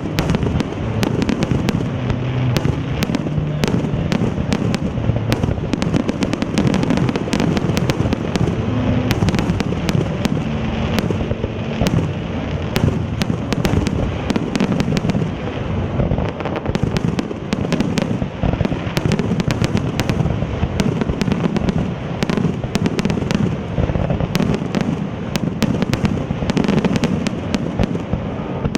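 Fireworks display: a dense, unbroken barrage of shell bursts and crackling reports, many per second, over a heavy low rumble.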